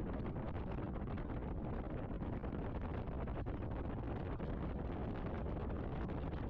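Steady low rumble of road and wind noise from a moving vehicle, with wind buffeting the microphone.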